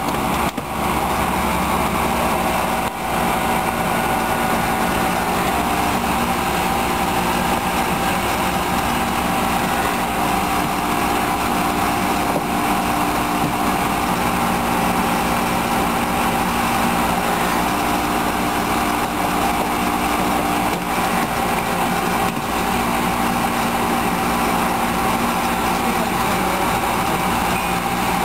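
Small petrol engine of a hydraulic rescue-tool power unit running steadily at an even speed.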